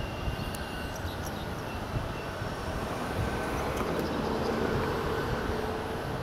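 Two coupled ADL-class diesel multiple units moving slowly through curved trackwork, a steady low rumble of engine and wheels.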